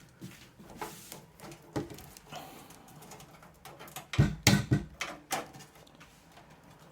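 Hard drive and its plastic drive tray being handled and pushed back into a PC case's drive bay: scattered light clicks and scrapes, then a quick run of louder knocks about four seconds in.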